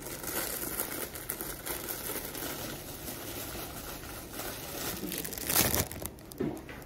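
Crinkling and tearing of a small mandarin orange being handled and peeled by hand, with a louder crackle about five and a half seconds in.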